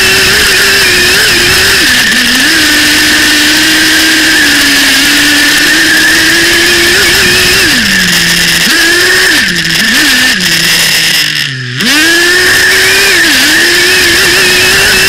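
Small nitro glow engine of an RC buggy running at high revs, heard up close from a camera on the car's chassis. About two-thirds of the way through, the throttle is let off several times and the pitch falls nearly to idle, then it revs sharply back up to full speed.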